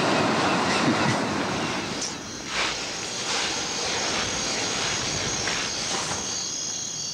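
A continuous rushing rumble with an even clack about twice a second from about two seconds in.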